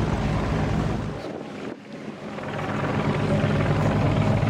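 Supermarine Spitfires' piston aero engines running on the ground, propellers turning, a steady low drone. The sound drops away briefly about a second and a half in, then comes back at full level.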